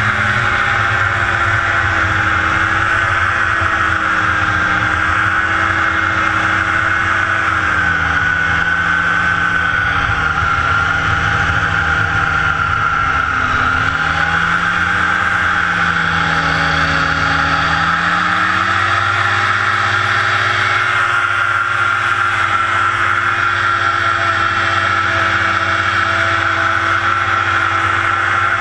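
Small single-seat hovercraft's engine and thrust fan running hard as it skims over grass, a loud steady drone with a high whine on top; its pitch sinks a little around the middle and rises again about two-thirds of the way through as the throttle eases and opens.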